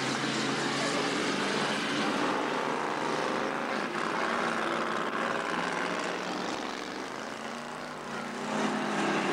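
Several race car engines running hard around a dirt speedway track, their notes rising and falling as they rev through the bend. The engine sound swells near the end as a car passes close by.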